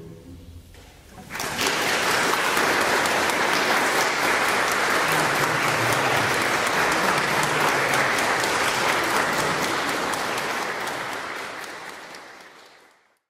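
Crowd applause: many hands clapping, coming in about a second and a half in, holding steady, then fading out near the end.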